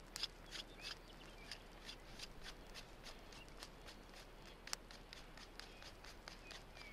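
Faint, irregular small clicks and rustles of wooden sticks being handled to build a drying rack, with one sharper click a little under five seconds in.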